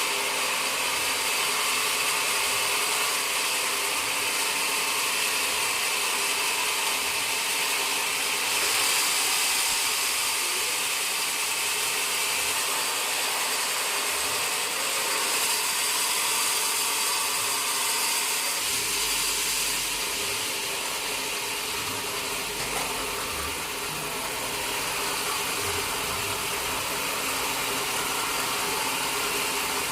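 Sawmill machinery running: a steady mechanical noise with a strong high hiss and a few steady tones, brighter for a few seconds about a third of the way in and again just past the middle.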